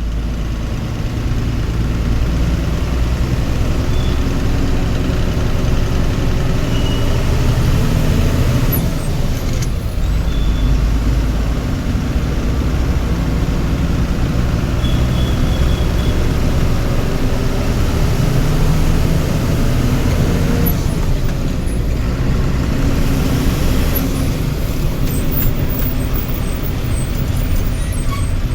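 Vehicle engine running in slow highway traffic, a steady rumble whose pitch rises and falls a few times.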